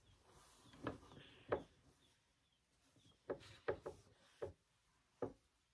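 Faint rummaging: about seven light knocks spread unevenly through the few seconds, with soft rubbing between them, as things are handled while socks are looked for.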